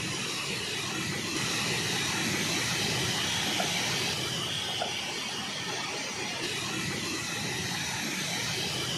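Water of a small stream rushing steadily over a rocky cascade.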